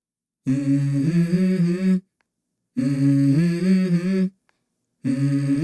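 Hummed vocal melody opening a song: phrases of about a second and a half with short silent gaps between, the notes held and stepping up and down in pitch, a third phrase starting near the end.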